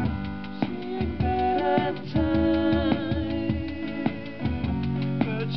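Live acoustic music: two acoustic guitars strummed together, with held melodic notes over them.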